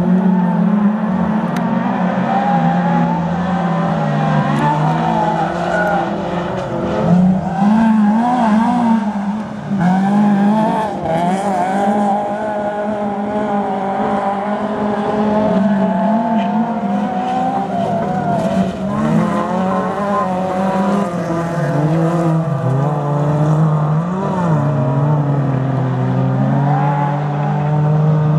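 Several small-capacity (up to 1.6-litre) autocross race cars racing on a dirt circuit. Their engines rev up and fall away through the gears without a break, with more than one engine heard at once.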